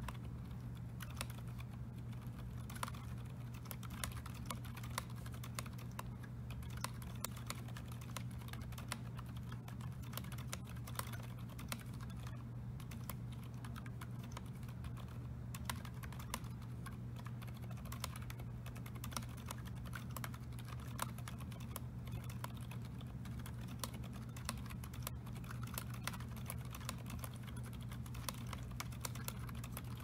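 Continuous fast typing on a mechanical keyboard fitted with Gazzew Boba U4 silent tactile switches (68 g springs): a rapid, uneven stream of short key clicks, over a steady low hum.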